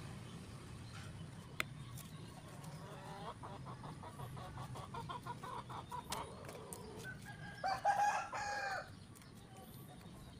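Chickens calling: a rapid run of clucks a few seconds in, then a louder, longer call near the end.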